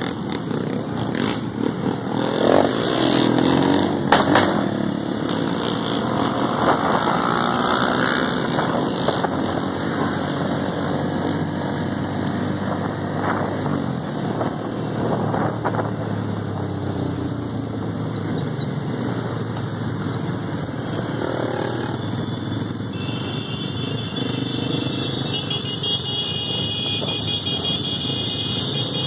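A crowd of small motorcycles riding together, many engines running at once, with rises and falls in pitch from revving in the first several seconds. A high steady tone joins in during the last few seconds.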